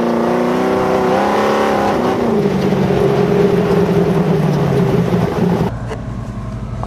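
X Ram Chevrolet LS V8 in an off-road buggy, heard from onboard while driving hard over desert dirt: the engine holds a high pitch, then drops back about two seconds in. Near the end the sound cuts to a quieter, steady low hum.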